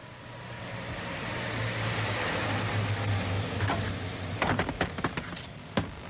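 A van's engine running as it passes on the road, growing louder over the first two seconds or so. It is followed by a run of sharp knocks and clatters in the second half as a television set tumbles out of the van's open back doors and hits the road.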